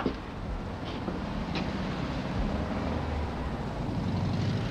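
Steady low rumble and hiss of background noise, with a few faint clicks.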